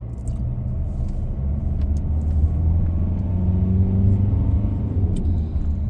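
Car driving, heard from inside the cabin: a steady low rumble of engine and road noise, with a few faint clicks.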